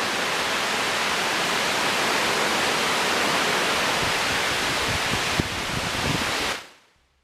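Heavy tropical-storm rain and wind, a dense, steady hiss, with a few low knocks in the last couple of seconds before it fades out.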